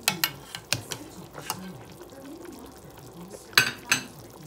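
A metal utensil clinking against a pot of simmering soup: a string of sharp clinks in the first second and a half, then two louder ones near the end, over the low sound of the soup simmering.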